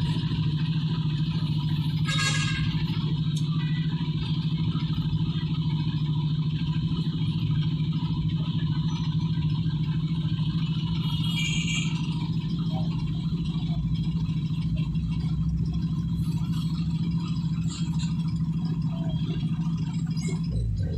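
Jeepney engine running steadily in slow traffic, heard from inside the cab as an even low drone. Brief rattles come through about two seconds in and again about eleven seconds in.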